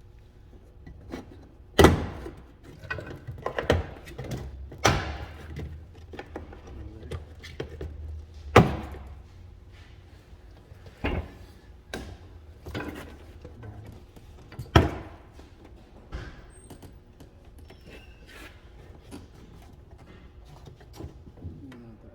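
Irregular thunks and knocks from hand work and a tool inside a Honda CR-V rear door while its latch is being taken out. The sharpest knocks come about 2, 9 and 15 seconds in.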